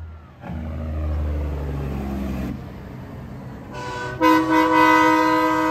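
A semi truck's diesel engine rumbles past with its pitch falling. About four seconds in, a truck air horn blasts a loud chord of several notes at once and holds it.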